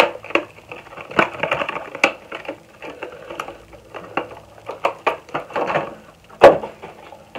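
Cardboard product boxes and skincare bottles being handled and unpacked: scattered clicks, taps and crinkling, with one louder knock about six and a half seconds in.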